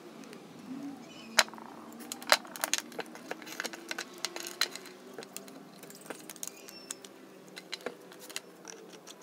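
Irregular sharp clicks and light knocks of a wooden lantern frame and a plastic lamp socket being handled and fitted together, the loudest about a second and a half and two and a half seconds in. A faint steady hum runs underneath.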